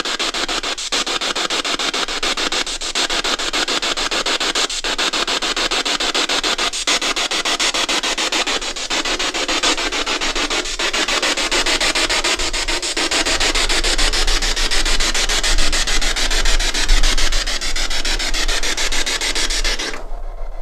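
Ghost box (spirit box) scanning radio frequencies: a loud steady hiss of static with a short dropout about every two seconds, cutting off suddenly near the end.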